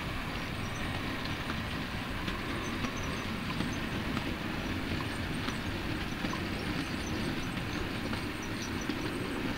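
Model railway train of bulk tank wagons rolling along the track: a steady running noise of small wheels on rail, with occasional light clicks.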